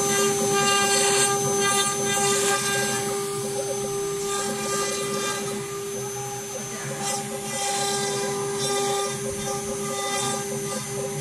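CNC router spindle running at a steady high whine while its bit engraves letters into an MDF board, with irregular surges of hissing cutting noise as the bit moves through each stroke.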